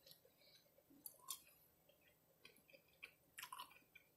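Faint chewing of a crunchy taco cup shell, with soft crunches about a second in and again near the end.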